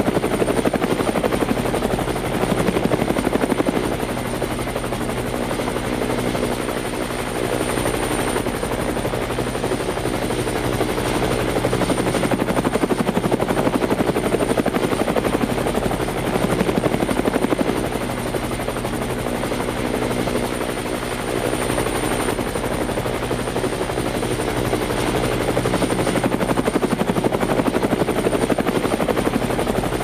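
Helicopter flying steadily: a fast rhythmic rotor chop over a deep drone, with a thin steady high whine above it, easing a little in loudness now and then.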